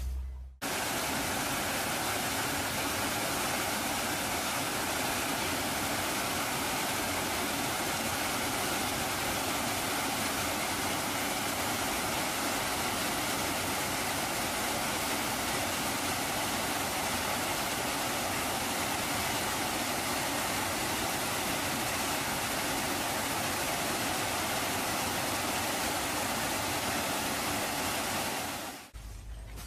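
Steady rush of running water, even and unbroken, starting abruptly just after the beginning and cutting off abruptly near the end.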